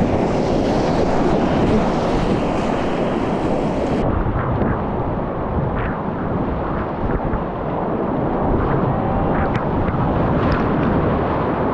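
Whitewater rushing and splashing around a raft or kayak, loud and steady, with wind buffeting the microphone.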